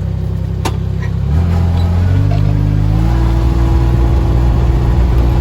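Utility vehicle (Mule side-by-side) engine running close by, then gaining revs about a second in and climbing in pitch in a few steps as it pulls away.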